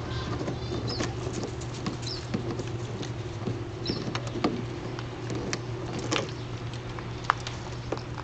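Light splashing and clicking as a puppy moves about in a few inches of water in a plastic wading pool, mouthing at its rim, with scattered short clicks and splashes.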